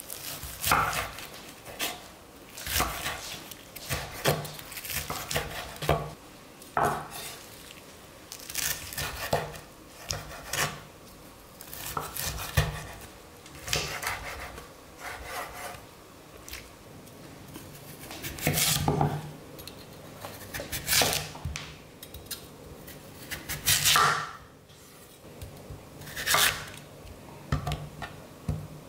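Kitchen knife cutting raw squid on a wooden cutting board: sharp knocks of the blade on the board every second or two, with softer scraping and handling between.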